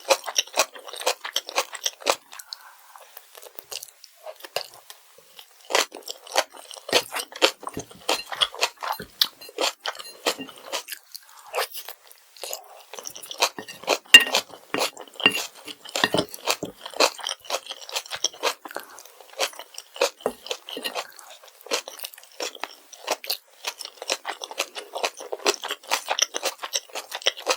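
Close-miked chewing of kimchi fried rice: a dense run of rapid crunchy chewing clicks, easing briefly about three seconds in and again near the middle.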